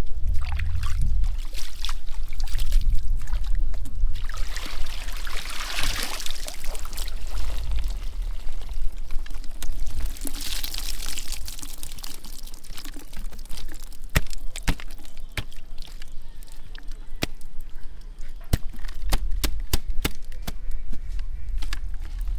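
Water pouring and splashing, swelling twice in the first half, followed by many sharp ticks and knocks in the second half.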